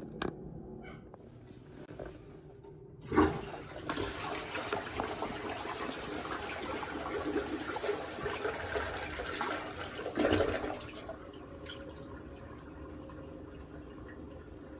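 TOTO toilet flushed with the lever handle: a sharp clunk about three seconds in, then water rushing through the bowl for about eight seconds with a last surge near the end, giving way to the quieter hiss of the tank refilling. A test flush of the newly replaced tank parts.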